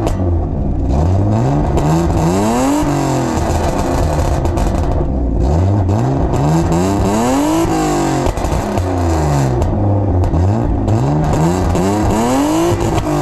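BMW E36 engine free-revved at a standstill, the pitch climbing and dropping again several times. It is heard through a gutted exhaust whose silencer packing has all blown out, and it sounds loud and tinny.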